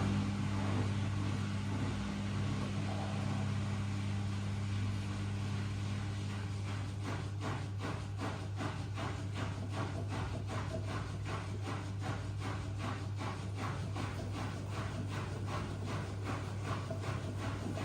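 Miele W1 washing machine running with a steady low hum. About six seconds in, a regular swishing joins it, about two to three strokes a second.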